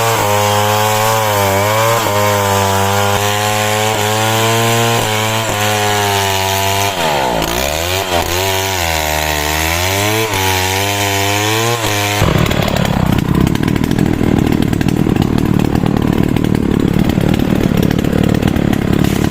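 Small engine running, its pitch rising and falling and dipping sharply about seven seconds in. About twelve seconds in it gives way abruptly to a loud, rough, steady noise.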